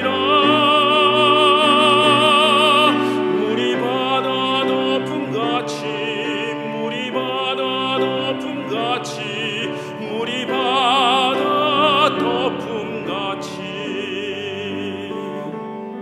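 A man singing a hymn solo in a classical, operatic style, with wide vibrato on long held notes, accompanied by cello and piano.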